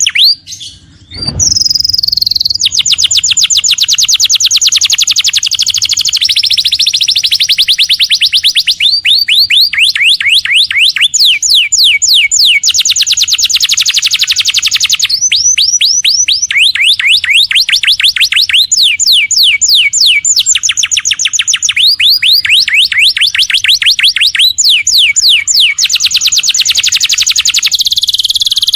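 Domestic canary singing continuously in long, fast trills of rapidly repeated downward-sweeping notes, switching from one rolling phrase to the next every second or two. There is a brief break with a low thump about a second in.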